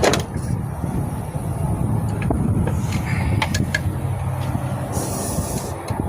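Wind buffeting the microphone, a heavy, steady low rumble, with a few light clicks and taps from hand tools on metal and a short hiss about five seconds in.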